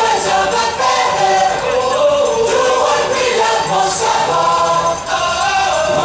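A recorded song played over loudspeakers: voices singing over backing music.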